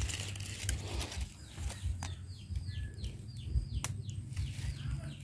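A small bird calling: about six short falling chirps in quick succession, starting about two seconds in. A few sharp clicks sound around it.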